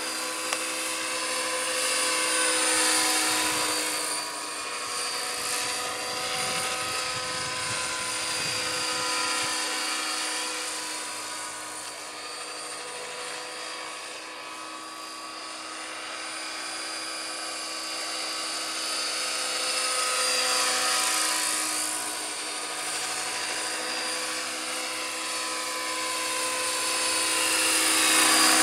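Radio-controlled scale helicopter (Bell LongRanger body on a T-Rex 600) in flight: a steady high whine with rotor noise. It swells and fades as it moves about, its pitch bending as it passes, and grows loudest near the end as it comes in close.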